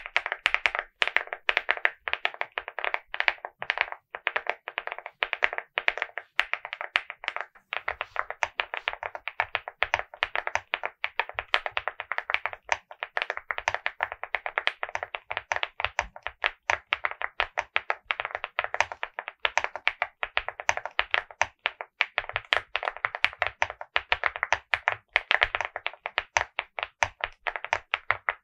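Continuous fast typing on a Hi75 mechanical keyboard with Akko CS Piano switches, a rapid stream of keystrokes with a deep, muted sound.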